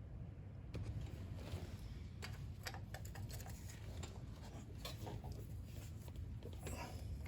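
Scattered light clicks and taps of a hand tool on metal, irregularly spaced, as a plug is worked loose on a David Bradley walk-behind tractor's gear case, over a steady low hum.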